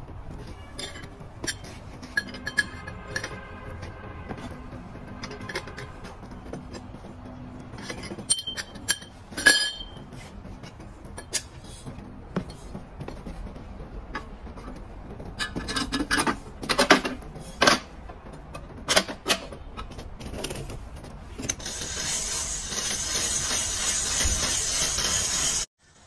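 Metal clinks and knocks from a cast-iron popcorn cannon as its lid is clamped shut and the pot is handled on its stand over the charcoal stove, thickest about two-thirds of the way in. Near the end, a steady rushing hiss from the stove's blower fanning the charcoal fire cuts off suddenly.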